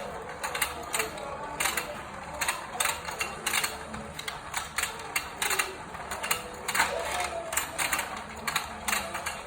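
Motorized toy fishing game running, its plastic gears and mechanism clicking rapidly and unevenly.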